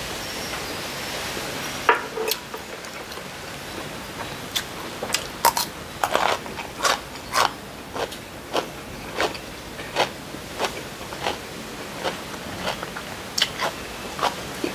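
A person chewing crunchy food with the mouth closed. Crisp crunches come at a steady pace of one to two a second from about four seconds in, over a constant hiss.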